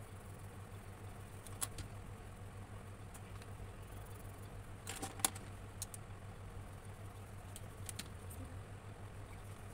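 A steady low hum with a few light clicks and taps of coloured pencils and oil pastels against the table and a plastic pencil case, the sharpest about five seconds in.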